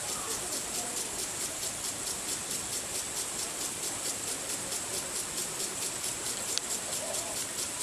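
Water sprinkler spraying: a steady high hiss that pulses in a fast, even rhythm.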